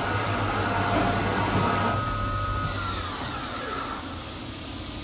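Hwacheon Sirius 550 CNC vertical machining center running its axis moves: a steady machine hum with a thin servo whine that slides down in pitch about three seconds in as the move slows, the sound easing off toward the end.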